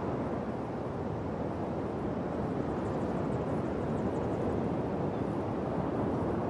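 Steady rushing noise of a mountain bike ride on a gravel track: tyres rolling over loose gravel mixed with wind on the microphone.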